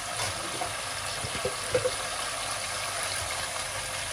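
Chicken pieces sizzling in hot oil in a kadai, with a few light knocks about a second and a half in as ginger-garlic paste is spooned into the pan.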